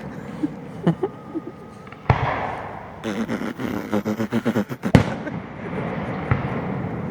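Aerial fireworks going off: a shell bursts with a sharp bang about two seconds in and rumbles away, then a run of rapid crackling ends in another loud bang, followed by a lighter pop.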